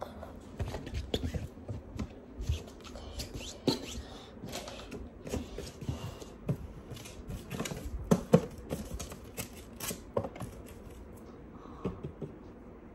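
Irregular small clicks, taps and rustling of things being handled, with a couple of sharper knocks about eight seconds in.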